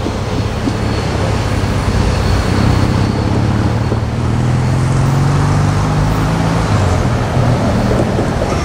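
Diesel-electric locomotive running at the end of a passenger train as it moves off: a steady low engine hum that rises in pitch about halfway through.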